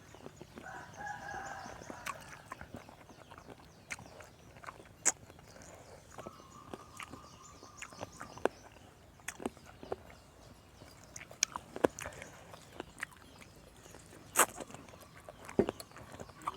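A rooster crowing, one call starting about half a second in, over scattered sharp clicks and knocks.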